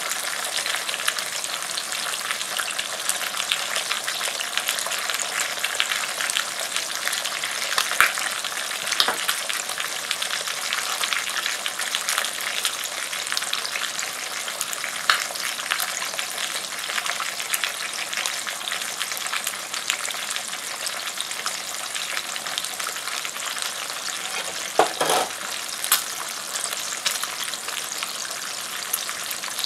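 Pork roasts searing fat side down in a large, very hot cast iron skillet: a steady sizzle of frying fat, full of small crackles and pops, with a few louder pops and clicks along the way.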